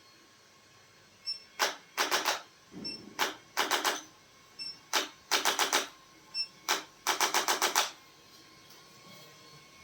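Bursts of sharp mechanical clicks, singly and in quick runs of up to six, over about seven seconds, then they stop.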